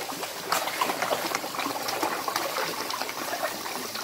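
Many koi splashing and churning at the surface of a pond, a busy, irregular patter of small splashes and gulps.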